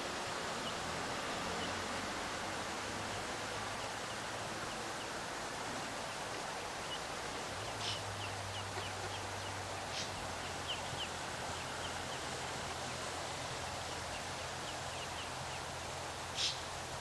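Steady rush of river water with runs of faint, quick, high peeps from eastern spot-billed duck ducklings. A few short sharp clicks come through, the loudest near the end.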